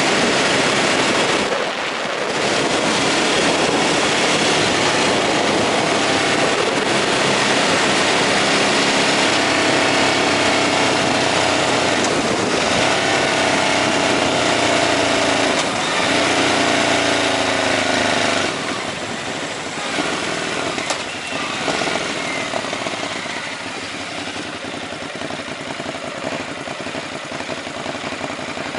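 Ducati Hypermotard 939's 937 cc L-twin engine, breathing through an Akrapovic exhaust, running under way with wind noise. The engine note rises in pitch as it accelerates in the middle, with brief dips at gear changes. About two-thirds of the way through it drops off and runs quieter.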